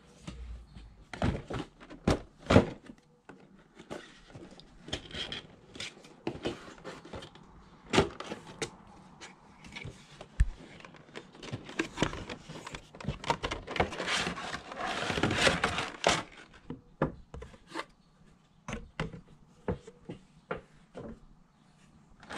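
Cardboard Funko Pop box and its clear plastic tray being handled and opened: scattered taps, knocks and scrapes, with a longer rustling scrape of plastic against cardboard about two-thirds of the way through as the tray comes out.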